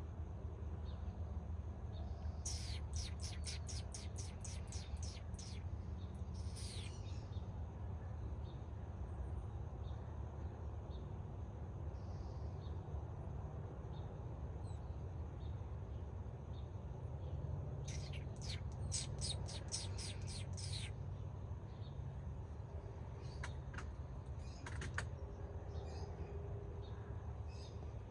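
A bird calls in two rapid runs of sharp, high chip notes, about four a second for roughly three seconds each. The first run starts about two seconds in and is followed by a single falling note; the second comes about two-thirds of the way through. A steady low rumble sits underneath.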